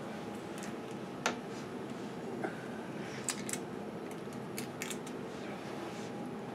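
Scattered small clicks and taps from hands working thin wood inlay stringing into a glued groove, the sharpest about a second in, over a steady low hum of shop room noise.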